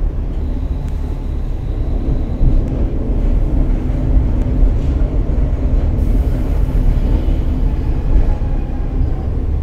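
JR West KiHa 47 diesel railcar running on the line, heard from inside the car: a steady rumble of engine and wheels on rail.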